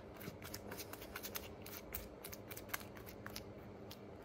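Small glue brush being worked over a rubber heel top lift, a quick, irregular run of faint short scrapes and ticks from the bristles, over a faint steady hum.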